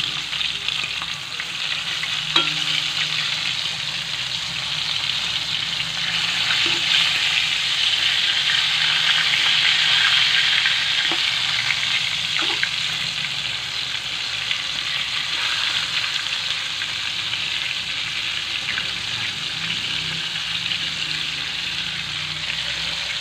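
Flour-coated chicken pieces frying in hot oil in a wok: a steady sizzling hiss that grows louder for a few seconds in the middle. A few light knocks are heard as the pieces are worked with a spatula.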